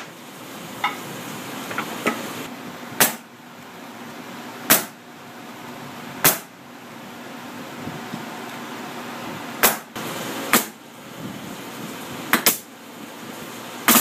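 Pneumatic brad nailer firing nails into wooden beehive frame parts: about seven sharp shots at uneven intervals of roughly one to three seconds, two of them in quick succession near the end.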